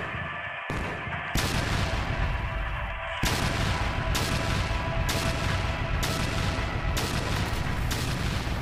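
Artillery fire and explosion booms over a dramatic music score that holds steady sustained tones. The booms grow heavier about a second and a half in, then land at an even pace, a little faster than one a second.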